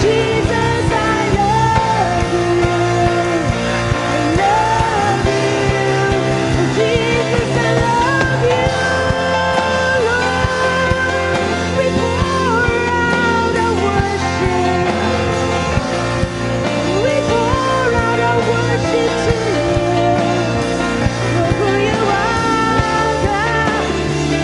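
Worship music: a band playing a slow song, with a singing voice carrying a gliding melody over sustained bass notes that shift every few seconds.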